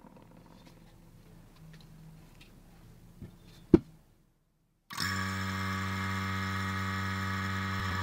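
A single sharp click a little before four seconds in. About a second later a vacuum pump starts and runs with a steady, even drone, pulling the air out of the chamber to degas the epoxy resin.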